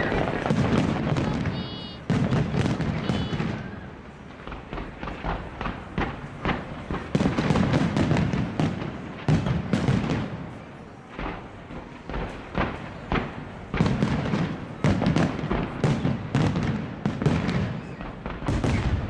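Fireworks display: aerial shells bursting in quick succession, many sharp bangs and crackles over a recurring low rumble of booms.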